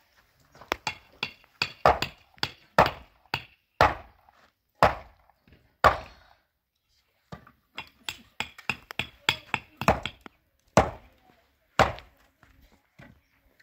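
Dry fire fuel being broken up by hand and knocked against the ground: a quick run of sharp cracks and thuds, with a short pause about halfway through before the cracking resumes.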